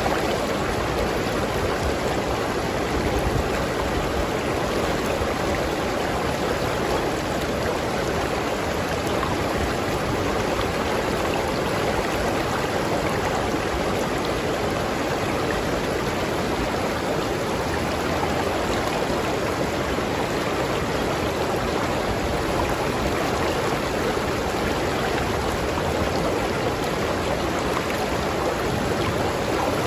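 River stream flowing over rocks, a steady rushing and bubbling of water.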